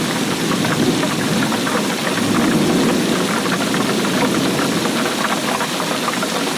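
Steady rainfall: a dense, even patter of many drops.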